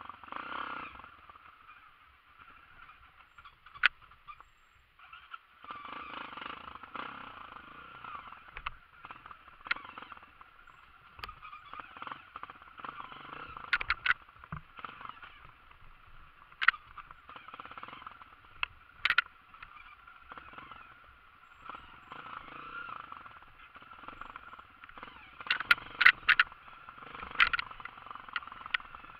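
Dirt bike engine running on a rocky forest trail, rising and falling with the throttle, with repeated sharp knocks and clatters as the bike jolts over rocks and roots. The knocks come in a cluster near the end.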